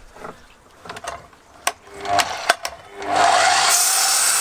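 A few knocks and clicks as wooden strips are handled on the saw, then about three seconds in an Evolution sliding mitre saw starts with a rising whine. Its blade drops into a stack of wooden strips, cutting them to length with a loud, steady saw noise.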